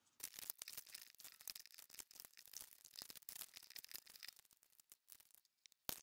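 A sheet of white paper rustling and crackling as it is folded and creased by hand into an origami crane. A dense run of crisp crinkles and scrapes breaks off briefly near the end, then starts again.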